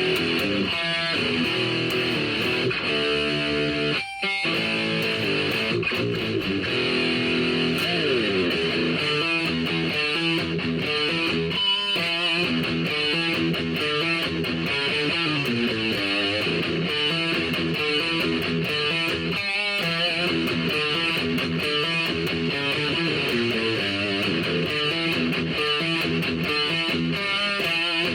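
Guitar playing: a continuous run of plucked notes, with a short break about four seconds in and a sliding note around eight seconds.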